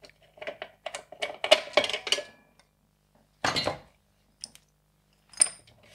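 Sheet-metal mounting bracket and housing of a metal-halide floodlight fixture being handled and taken apart: a run of small clicks and rattles in the first two seconds, a louder clatter about three and a half seconds in, and a short ringing metal clink near the end.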